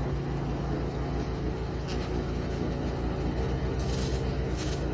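Short hissing blasts blown through a freshly cleaned small-engine carburetor to check that its passages are clear: one about two seconds in and two more near the end. Under them runs a steady low, rhythmic machine hum.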